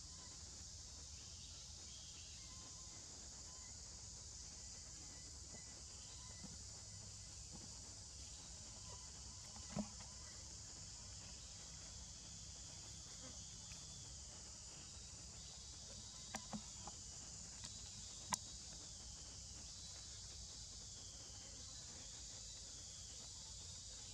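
Steady high-pitched drone of insects in the forest, with a few short sharp clicks on top, the loudest about ten seconds in and another about eighteen seconds in.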